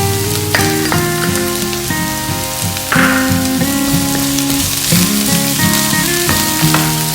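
Garlic and onions sizzling steadily as they sauté in hot cooking oil in a pan, with background music playing over it.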